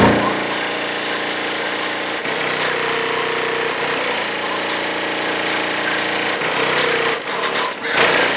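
Two Sundown ZV.4 12-inch subwoofers playing loud bass in a pickup, heard from outside the cab. The bass tones hold steady and change about two seconds in and again near the end.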